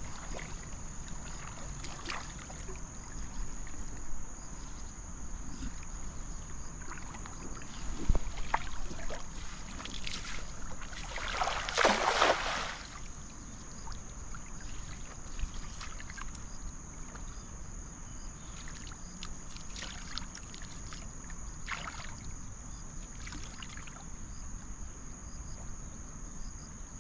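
A cast net landing on the water about 12 seconds in, a splashy rush lasting over a second, with a sharp knock a few seconds before it. A steady high-pitched insect trill runs underneath.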